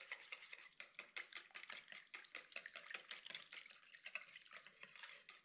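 Wire whisk stirring cream of mushroom soup and milk in a plastic mixing bowl: faint, rapid clicking and scraping of the whisk against the bowl.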